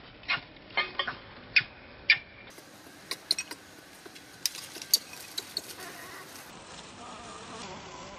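Newborn pigtail macaque giving short high squeaks, a dozen or so scattered among sharp clicks, with a longer, hazier cry in the last couple of seconds as it is handled by its mother.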